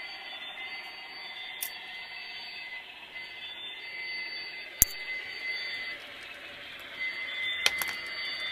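HO scale model trains running on the layout's DC track: a steady high-pitched whine, with three sharp clicks, the loudest about halfway through.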